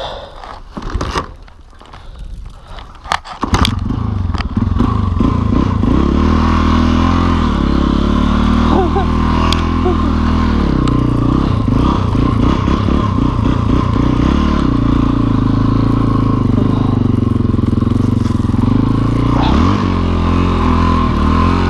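Yamaha XT dual-sport motorcycle's single-cylinder engine, quiet at first amid a few clicks and crunches, then loud from about three and a half seconds in and running on with revs rising and falling as the rear wheel spins and slides for grip in deep snow.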